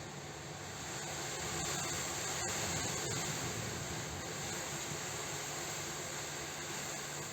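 Strong, unbroken wind rushing and gusting, swelling about a second in, with a few faint knocks.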